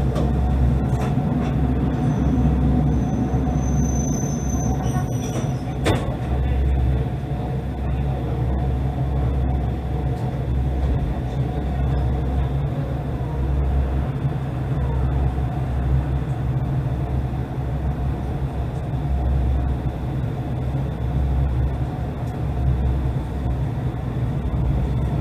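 Single-car diesel railcar running, heard from inside: a steady engine drone and rail rumble. A brief high squeal sounds a couple of seconds in, and a single sharp click comes about six seconds in.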